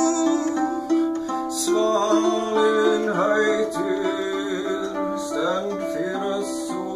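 Round lyre strung with nylon and one gut string being played, its chords ringing on and overlapping. From about two seconds in, a man's voice sings along in sliding, bending notes.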